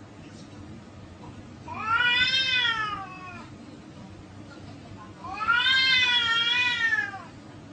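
Domestic cat yowling in a face-off with another cat: two long drawn-out yowls, each rising then falling in pitch and lasting about two seconds, a few seconds apart. This is the threat yowl of a standoff that comes just before a fight.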